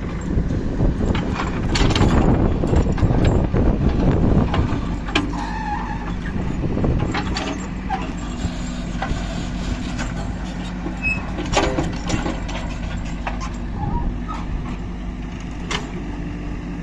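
Heavy diesel engine running steadily, growing louder for a few seconds near the start, with scattered knocks and clanks.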